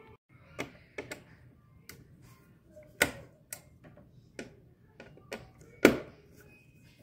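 Screwdriver and screws clicking and tapping against a TV's sheet-metal T-con cover plate as it is unscrewed: a run of irregular sharp clicks, the loudest about three seconds in and again just before six seconds.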